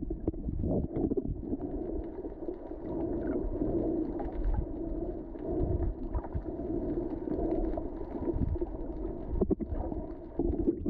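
Muffled underwater sound through an action camera's waterproof housing: a low rumbling wash of water with a steady low hum and scattered clicks. A few sharper knocks come about nine and a half seconds in.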